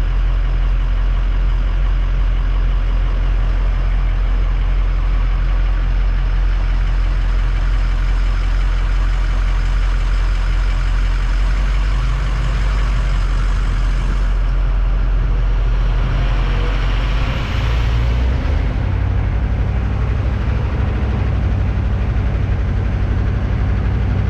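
HMMWV diesel V8 running steadily at idle, heard from inside the cab. About two-thirds of the way through, the engine note changes as the truck pulls away and drives off.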